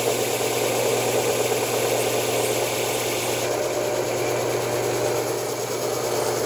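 Delta belt and disc sander running with a steady motor hum, its sanding belt rasping away the end of a small wood strip held against it under pressure.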